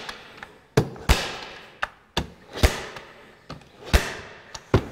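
Manual staple gun firing staples into a wooden frame: a series of about six sharp snaps at uneven intervals, each with a short decaying ring, plus a couple of fainter clicks.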